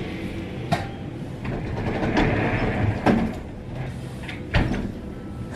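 A few sharp knocks and a scraping as a large rigid panel is handled and shifted against the balcony's glass sliding door, over the rumble of motorcycles in the street that swells about two seconds in.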